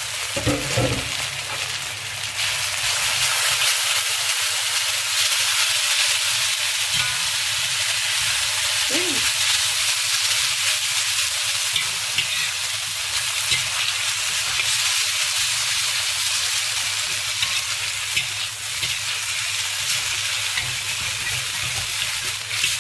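Egg noodles sizzling in hot oil in a wok while they are stir-fried with shallots, a steady loud hiss with occasional scrapes and clicks of the stirring.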